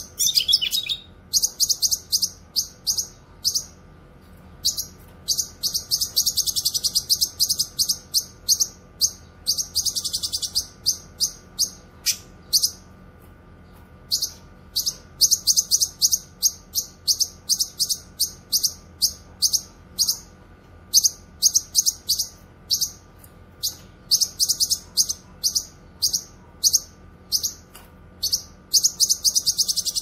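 Cucak kinoy, a leafbird, singing long runs of rapid, sharp high chirps, several a second, broken by a few short pauses.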